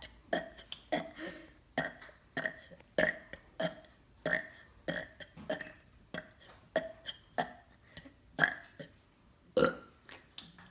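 A child making fake burps on purpose: a quick run of about twenty short belches, roughly two a second, each pushed up from swallowed-back air.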